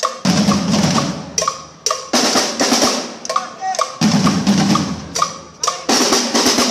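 A group of drummers on drum kits with toms, snares and cymbals playing loud rolls together in repeated phrases. A new surge begins about every two seconds, each with a crash and fading before the next.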